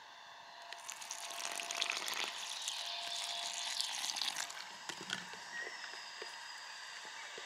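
Water poured in a stream onto flour in a wooden bowl, starting about a second in and stopping a little after halfway, then a few light knocks of a wooden stick mixing it into pasta dough.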